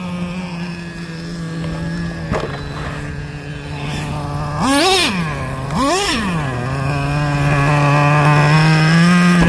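Traxxas Slayer's 3.3 nitro engine idling with a steady pitched buzz. It is blipped twice, about five and six seconds in, the pitch shooting up and dropping back each time.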